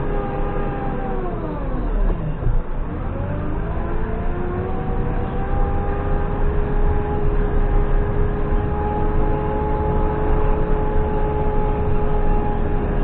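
JCB 3CX backhoe loader running with a low rumble and a steady whine. About two seconds in, the whine falls sharply in pitch almost to nothing, then climbs back within a couple of seconds and holds level.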